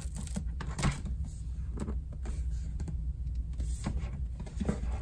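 Hands handling a rigid cardboard gift box, turning it over and pressing and rubbing at its lid, giving soft scrapes and light knocks over a steady low hum.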